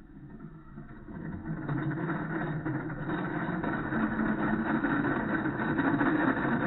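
1/10-scale RC dump truck driving, its motor and drivetrain making a steady engine-like drone that grows louder over the first few seconds.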